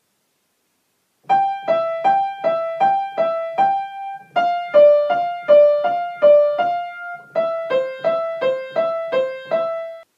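Piano played legato in a swinging back-and-forth figure, rocking between two notes a little under three times a second. It comes in three short phrases, each a step lower than the one before and each ending on a held note, starting about a second in.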